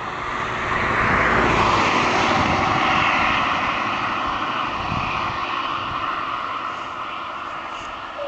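DB class 628 diesel multiple unit passing, its diesel engine and running noise swelling about a second in, holding for a couple of seconds, then fading slowly as it moves away.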